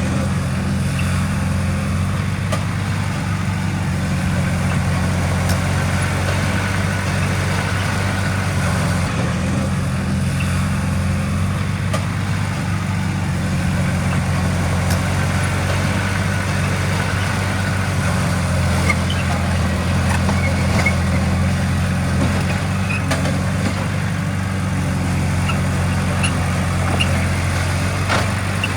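Heavy diesel engine of earthmoving machinery running steadily at constant speed, a low even engine note that does not change.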